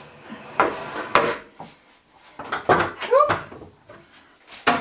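Knocks and clatter of light wooden furniture and objects being handled and set down, in a few separate bursts, with a sharp click near the end.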